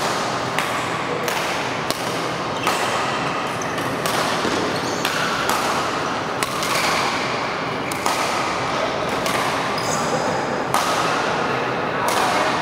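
Badminton rally: rackets striking a shuttlecock with sharp smacks, about one or two a second, over a steady background hiss in a large hall.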